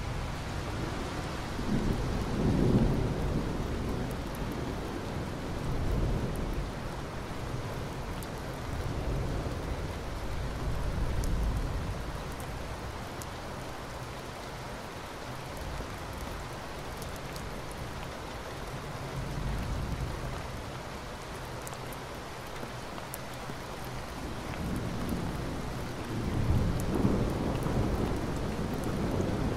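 Steady rain falling, with low rolls of thunder swelling and fading several times, loudest about two seconds in and again near the end.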